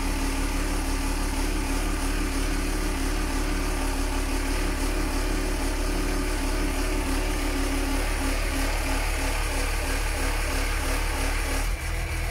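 Truck engine running steadily, driving the hydraulics of a SANY Palfinger SPK23500 knuckle-boom crane as the boom folds down to its stowed position: a constant low hum with a held tone above it. The tone drops out and the sound changes near the end.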